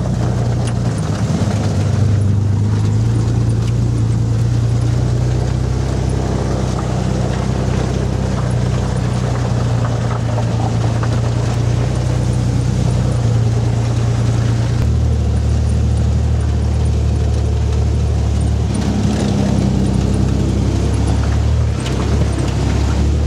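Off-road 4x4's engine running loud and steady under load, its note changing about fifteen seconds in and again near the end.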